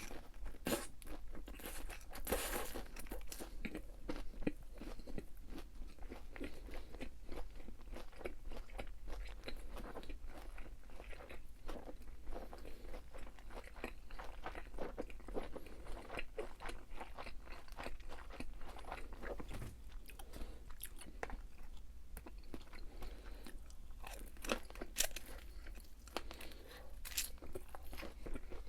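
A person chewing and biting crunchy fried food close to the microphone: dense, irregular crunching that goes on throughout, loudest about two and a half seconds in.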